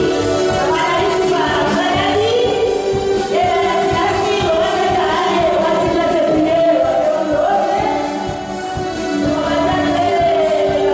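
A woman singing into a microphone, amplified over music playing.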